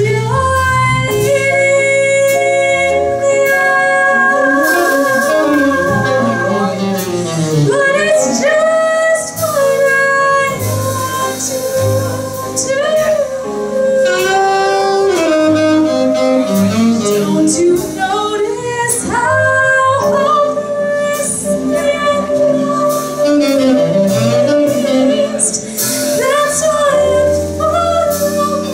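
Live jazz performance: a female vocalist sings long held notes with vibrato over instrumental accompaniment.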